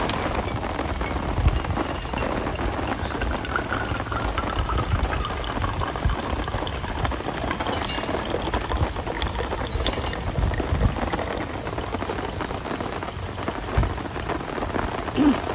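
Rain falling steadily, with scattered individual drop impacts and a few low thumps.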